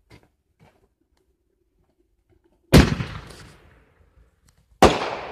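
Fireworks going off: two loud bangs about two seconds apart, each trailing off as it fades.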